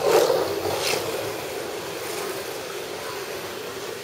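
Kyosho dNaNo 1:43-scale electric RC cars running round a tabletop track: a steady hum and hiss, loudest just after the start and easing off.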